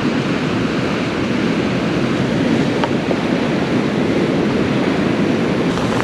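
Steady rush of flowing creek water.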